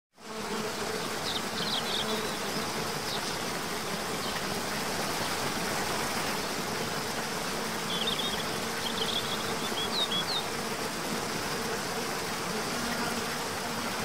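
Steady rushing of a cascading waterfall. A few short, high chirps come through about a second in and again between about eight and ten seconds.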